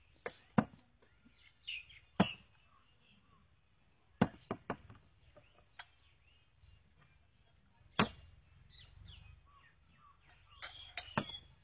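Small liquor bottles being set down one by one on a table, making sharp knocks and clinks at irregular intervals. Birds chirp faintly in the background.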